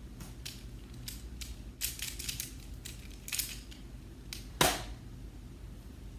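Plastic clicks of a Pyraminx puzzle being turned in quick irregular twists, with one much louder knock about four and a half seconds in.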